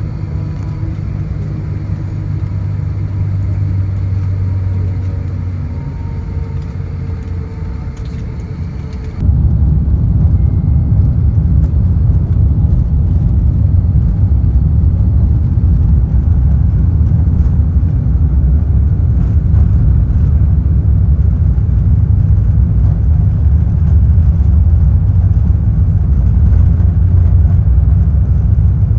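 Airbus A350 engine noise: a steady low hum with faint held tones, then about nine seconds in an abrupt jump to a louder, deeper rumble that holds steady.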